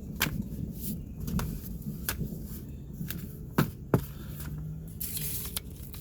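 Paper booklets and packaging being handled and put away: rustling with several sharp clicks and knocks, and a patch of paper rustle near the end.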